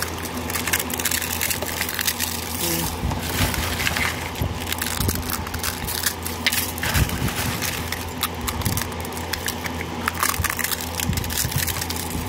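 Hand crushing a pile of dry eggshells: a dense, irregular run of crackling and crunching as the shells break.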